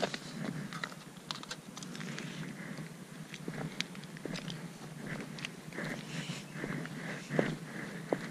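Footsteps crunching on a gravel path, an irregular series of short crunches and clicks.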